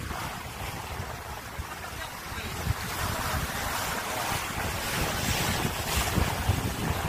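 Sea water rushing and splashing along the hull of a sailing yacht under way, with wind buffeting the microphone; it grows a little louder about three seconds in.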